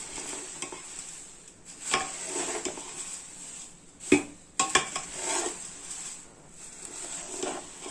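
A perforated steel spoon stirring dry flattened rice (poha) in a large steel pot: the flakes scrape and rustle, with a few sharp clinks of the spoon against the pot, the loudest about four seconds in.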